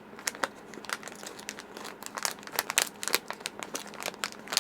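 Plastic crinkling and irregular clicking from an SMD resistor sample book being handled, its plastic pages and tape strips rustling.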